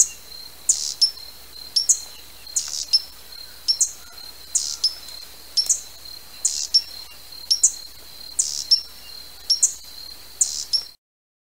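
Hummingbird giving sharp, high chip notes, mostly in quick pairs about once a second, over a steady thin high whine. The sound cuts off suddenly near the end.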